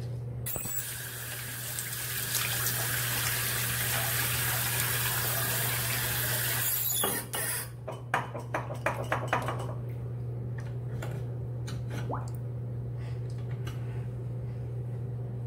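A steady rushing hiss for about six seconds, then a quick run of clicks and knocks, over a constant low hum.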